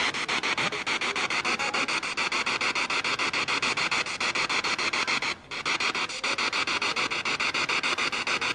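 PSB7 spirit box sweeping rapidly through radio stations, played through a JBL portable speaker: choppy static chopped by clicks at about ten a second, with a brief drop about five and a half seconds in.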